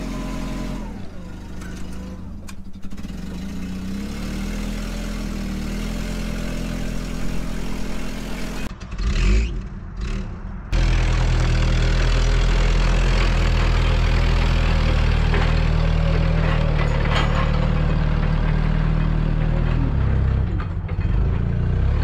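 Propane-fuelled Hyster forklift engine running steadily just after a cool-weather start. Around nine seconds in there are a few muffled knocks, and then the engine is heard louder and fuller, its pitch shifting slightly near the end.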